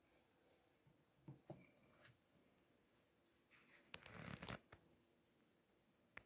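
Faint handling sounds: a few soft clicks, then a short crinkling rustle of parchment paper on a baking tray about four seconds in, as butter pieces are pressed into mushroom caps.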